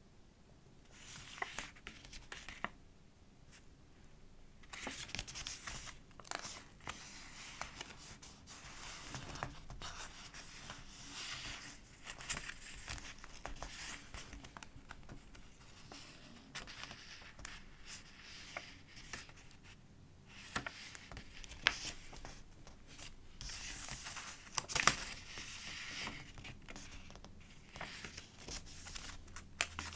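Stiff, collaged journal pages rustling and crinkling as they are handled and turned, with many small paper clicks and a couple of sharp, louder crackles about two-thirds of the way through.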